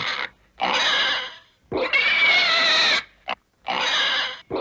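Cartoon piglet squealing and crying: three long pitched cries, the middle one the longest, with a brief squeak between the second and third.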